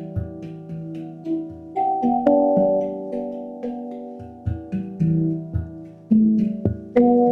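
Handpan being played: a steady run of struck notes, several a second, each ringing on and overlapping the next, with a few sharper accented strikes.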